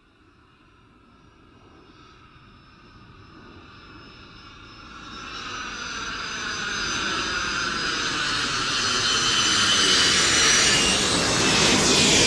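Private jet approaching for an overhead pass, its engines growing steadily louder from faint to loud. There is a high turbine whine over a rising rush, peaking near the end as it comes overhead.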